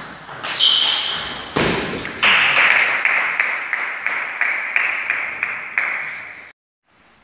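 A table tennis rally, the ball knocking off bats and table in the first couple of seconds. Then comes a few seconds of a steady sound with regular sharp knocks about three a second, which cuts off suddenly near the end.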